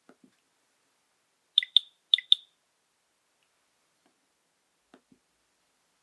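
Nokia 6234 mobile phone: two quick pairs of short, high beeps from its speaker, with a pair of faint clicks before and another pair after.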